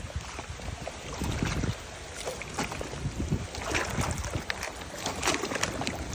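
Gusty wind buffeting the microphone, with water lapping and splashing.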